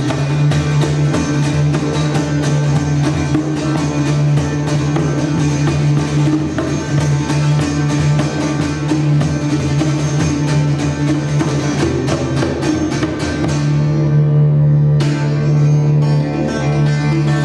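Didgeridoo playing a steady low buzzing drone, its overtones shifting, with hand-struck frame drum strokes over it until about 13 seconds in.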